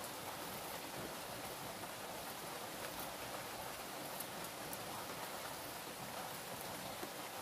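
Steady rain falling, an even hiss with a few faint taps mixed in.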